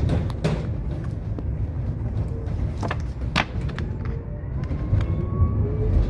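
Tram running along its track: a steady low rumble with scattered sharp clicks and knocks from the wheels over the rails, and a faint rising whine in the last couple of seconds.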